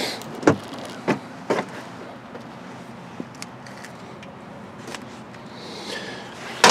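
Knocks and clunks from the cab of a Polaris RZR XP 1000 side-by-side as someone climbs out: four sharp knocks in the first second and a half, then a louder clunk near the end, over a faint steady hum.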